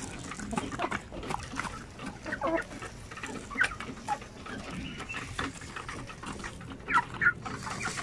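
A flock of shamo game chickens clucking while they feed, with many short taps of beaks pecking grain from a wooden trough. Two louder calls come about seven seconds in.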